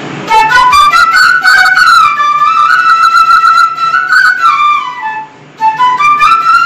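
Background music: a single flute-like melody of long notes that slide up and down, with a short lull a little after five seconds in.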